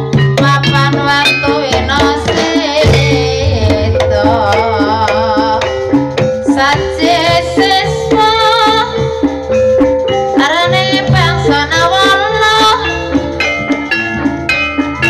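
Gamelan music accompanying ebeg (kuda lumping) dance: kendang hand-drum strokes over held metallophone tones, with a voice singing long wavering notes.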